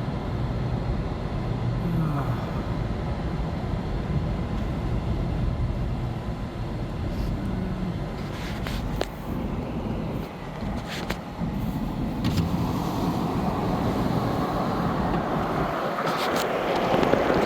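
Car driving, steady engine and road rumble heard from inside the moving car, with a few light clicks; the road noise grows louder over the last few seconds.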